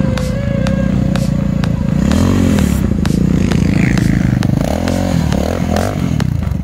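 Quad bike engine running under a rider, its revs rising and falling twice, with scattered clatter and knocks from the ride.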